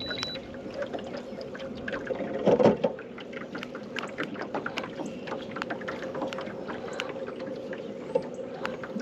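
Boat motor running steadily, with scattered clicks and knocks over it and a louder, brief surge about two and a half seconds in.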